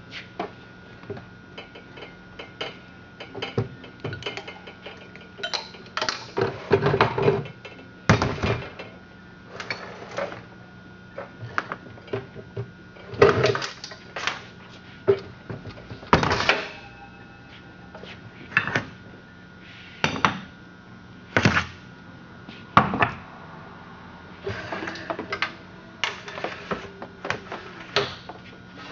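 Aluminium hydraulic tree-jack set (rams, hand pump and hoses) being handled and set up: irregular clanks, knocks and scraping of metal parts, a few louder bangs among them.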